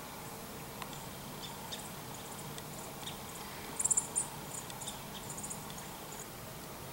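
Small birds chirping: scattered high, thin chips, with a quick cluster of them about four seconds in.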